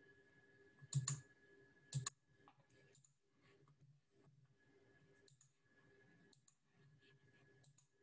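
Computer mouse clicks: two sharp clicks about a second apart, then fainter scattered clicks, over a faint steady hum.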